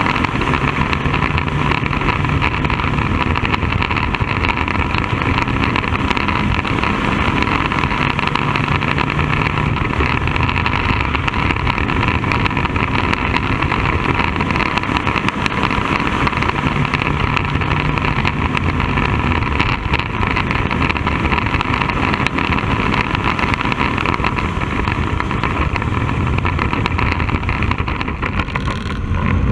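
Bandolero race car's engine running steadily, heard from inside the open cockpit, with its low note swelling now and then; it dips briefly near the end.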